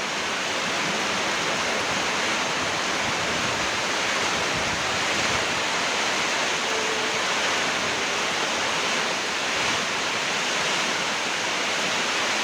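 Steady, even rushing noise of a rainstorm, rain and wind together, with no breaks or distinct events.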